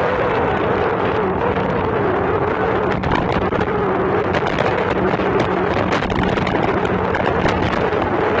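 Motorboat engine running steadily at speed, its note wavering slightly, with wind buffeting the microphone and short crackles from about three seconds in.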